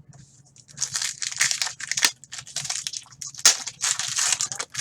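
Foil trading-card pack wrappers being opened and crumpled: a run of crinkling, crackling rustles, loudest about three and a half seconds in.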